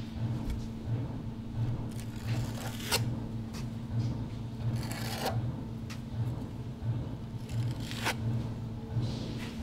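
Trowel scraping sealing adhesive across a board in a corner and combing it with a notched trowel: a few short rasping strokes, the longest about five seconds in. A steady low pulsing hum runs underneath.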